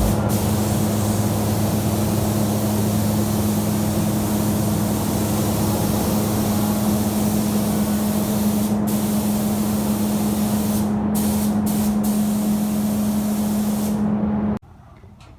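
Automotive paint spray gun hissing steadily as paint is sprayed on a truck body, over a steady low hum. The spray stops briefly a couple of times and cuts off near the end.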